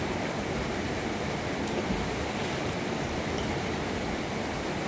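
Fast-flowing river water rushing steadily.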